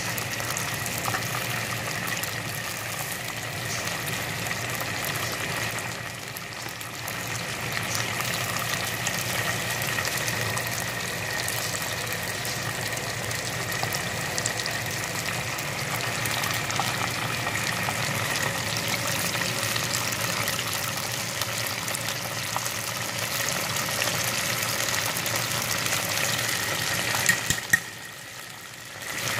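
Chicken wings deep-frying in a pot of hot oil: a steady crackling sizzle. Near the end come two sharp clicks, and then the sizzle briefly drops quieter.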